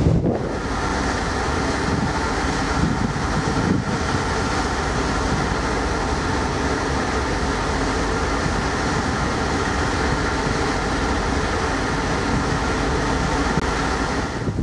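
Steady mechanical drone of the MV Armorique ro-ro ferry's machinery, heard on the open deck: a low rumble with many steady tones layered over it.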